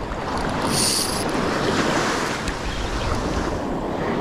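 Surf breaking and washing up the beach, with wind buffeting the microphone. A brief high hiss comes about a second in.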